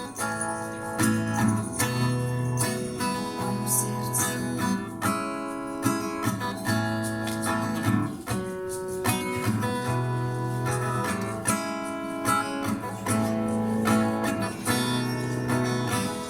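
Acoustic guitar strummed in a steady rhythm, playing out a song with no singing.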